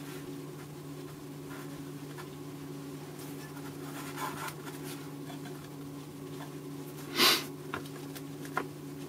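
Handling of a handheld digital multimeter: a few light clicks and one short, louder scrape about seven seconds in, over a steady low hum.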